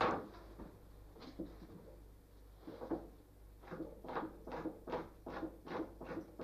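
Fox skin being scraped on a stretching board, the tool rasping over the flesh side to strip off fat, flesh and connective tissue. A few scattered strokes come first, then a steady run of short scrapes, about three a second, from a few seconds in.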